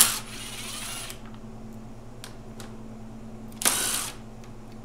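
Cordless impact driver spinning out 8 mm radiator shroud bolts: a sharp click and about a second of running at the start, then a shorter run of about half a second near the end.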